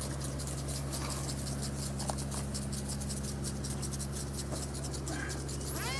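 A steady crackling rustle, then near the end the Scythe flying wing's Zoom 370 brushless electric motor spools up with a rising whine as it is throttled up for a hand launch.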